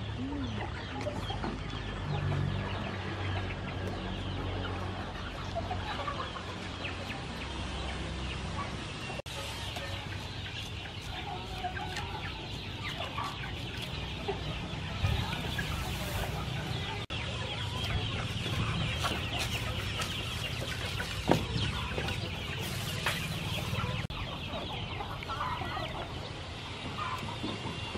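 Chickens clucking on and off in a farmyard, with a single sharp knock a little past the middle.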